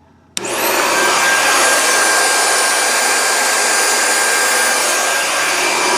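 Panasonic MC3920 vacuum cleaner motor switched on, starting suddenly about a third of a second in with a whine that quickly rises to full speed, then running steadily and loudly.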